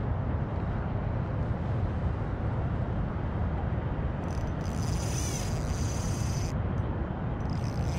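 Fishing reel being cranked while a hooked trout is played on a bent rod, a high whirring that starts about four seconds in and comes again near the end, over a steady low rumble.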